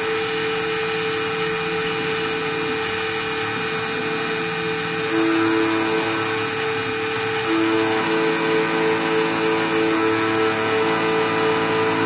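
Computerized key-cutting machine milling a car key blade with a small end-mill cutter. A steady high whine runs over held motor tones, and some of those tones come and go every second or so.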